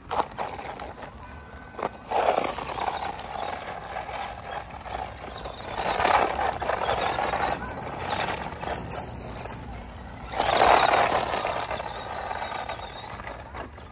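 Small electric 1/16-scale RC truck driven in bursts over gritty tarmac: motor whine and tyres scrabbling on loose grit swell up three times, about two, six and ten and a half seconds in.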